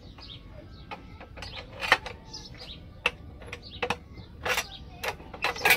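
Steel wire being bent into column stirrups on a homemade bending jig, worked with a steel pipe lever: a series of sharp metallic clanks and clicks, about one a second, as the bar, pipe and wire knock against the jig.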